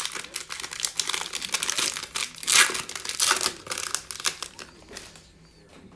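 Foil wrapper of a 2019-20 Panini Mosaic basketball card pack being torn open and crinkled as the cards are pulled out: dense rapid crackling, loudest about halfway through, dying down in the last second.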